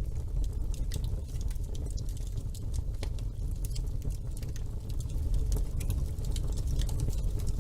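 Wood fire burning in a fireplace, with a steady low rumble of flames and irregular sharp crackles and pops of burning logs.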